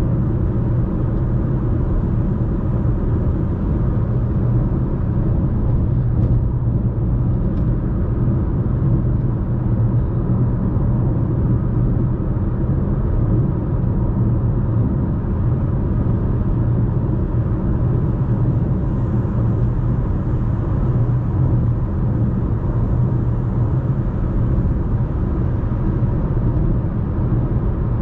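Steady cabin noise of a Chevrolet Malibu 1.35T cruising at about 100 km/h on the expressway: an even low rumble of tyres, road and engine heard from inside the car.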